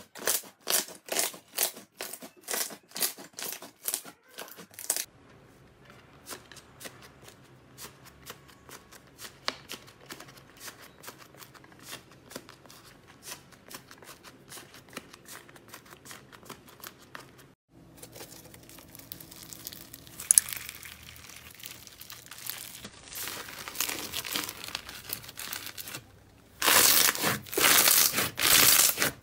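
Hands squeezing and poking slime, making wet clicking and crackling pops. The pops come about two a second at first, go fainter and thicker through the middle, and turn into a loud, dense crackle near the end.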